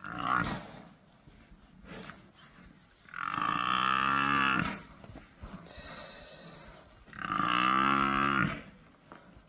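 African buffalo bellowing in distress while lions pull it down: a short cry at the start, then two long, drawn-out bellows about four seconds apart.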